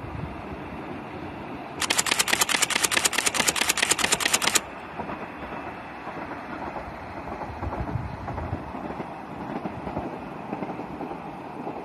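A rapid, even run of sharp clicks, about ten a second, starting abruptly about two seconds in and stopping just as abruptly nearly three seconds later, over steady wind noise.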